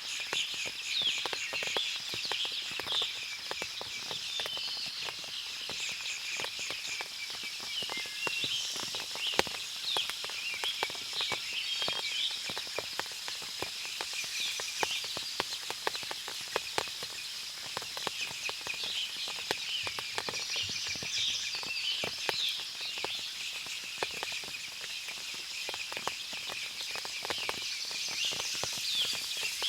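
Forest ambience after rain: many birds chirping and calling over one another, a steady high-pitched hum underneath, and water dripping as scattered sharp ticks throughout.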